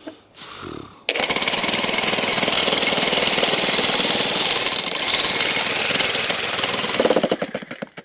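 TR Industrial 120-volt corded electric jackhammer with a ground rod driver bit hammering a rebar pin into the ground: loud, rapid, steady blows that start abruptly about a second in and stop near the end.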